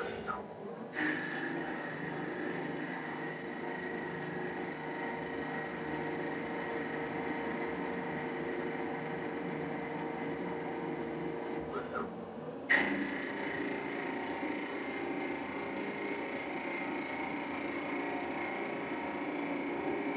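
TRAK 1845RX CNC lathe turning the outside diameter of a metal bar under program: the spindle runs steadily while the tool cuts, with a steady whine from the machine. The sound dips briefly twice, near the start and about twelve seconds in, and picks up sharply again each time.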